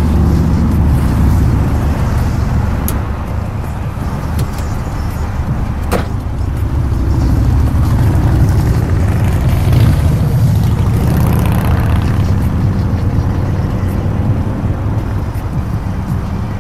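Polaris Slingshot engine running while driving, with road and wind noise in the open cockpit, growing louder around the middle.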